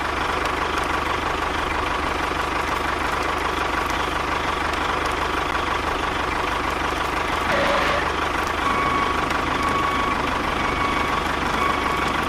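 Tractor engine running steadily, with a faint steady whine over a low rumble.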